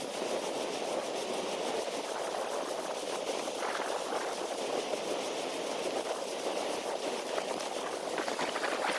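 Strong gale blowing steadily, a continuous rushing noise with wind buffeting the microphone.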